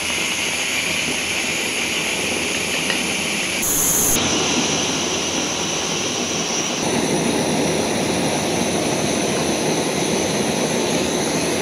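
MSR WhisperLite Universal stove burning canister gas at full flame, a steady rushing burner noise, with the water in the aluminium kettle on it at a rolling boil. The sound shifts slightly about four and seven seconds in.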